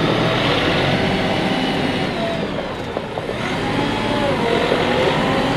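Bobcat CT5550 compact tractor's 50 hp three-cylinder diesel running as the tractor drives and turns; the engine note sags slightly about halfway through and then picks back up.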